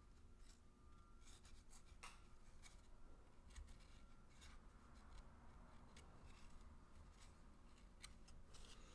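Near silence with faint, scattered rustles and clicks from trading cards and pack paper being handled and shuffled.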